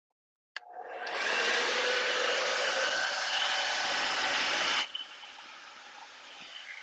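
Blow dryer clicked on, running with a steady rush of air that builds up quickly, then switched off abruptly after about four seconds; it is blowing the wet paint across the canvas for a Dutch pour.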